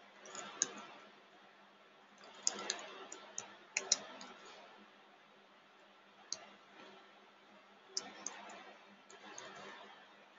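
Computer keyboard typing: irregular keystrokes in small clusters with pauses between them, as a line of code is entered.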